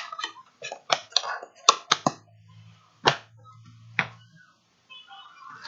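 Hard plastic fountain pens clicking and tapping against each other and a tabletop as they are handled and set down: a quick run of sharp clicks in the first two seconds, then two single knocks about a second apart, with a faint low hum between them.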